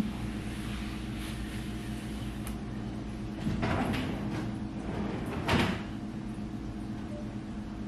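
Kitchen handling sounds over a steady low hum: a short click as a glass is lifted off the counter, then a few brief scrapes and knocks, the loudest a little past five seconds in, like a cupboard or door being shut.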